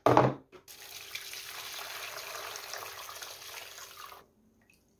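Fermenting grape must, juice and crushed grapes, pouring from a plastic jug into a mesh strainer and bowl, a steady splashing pour that stops about four seconds in. This is the straining of the young wine after four days of fermentation.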